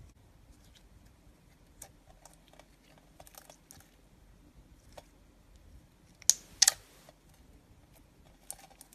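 Clear blue slime being pressed and squeezed in the hands, giving scattered sticky clicks and small pops, with a burst of sharp, louder pops a little past the middle.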